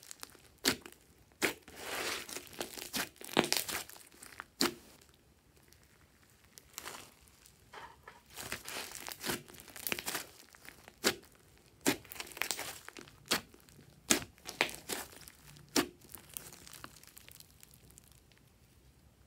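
Hands squeezing, stretching and poking a large lump of slime mixed with foam beads, making irregular sharp pops and wet crackles, with quieter stretches between handfuls.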